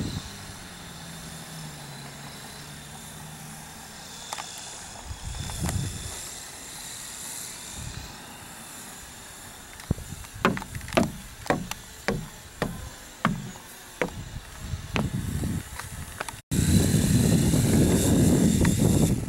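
Small quadcopter drone's motors and propellers whining faintly and steadily. About ten seconds in comes a run of a dozen or so knocks on wooden boards, then after an abrupt cut a loud low rushing noise.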